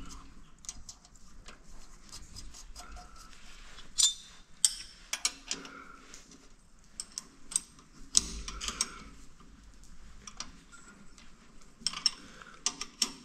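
Hand tools and metal engine parts clinking and tapping in an irregular scatter of short, sharp knocks and rattles, louder around four and eight seconds in.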